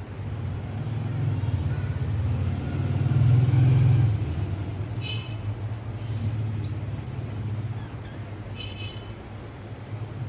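A low rumble throughout, swelling to its loudest a little past the middle, with two short shrill squawks from a rose-ringed parakeet: one about halfway through and one near the end.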